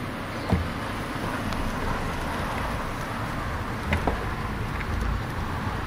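Bicycle riding on a cracked asphalt street, heard from a camera on the bike: a steady rush of wind and rolling noise, with two short knocks about half a second in and near four seconds.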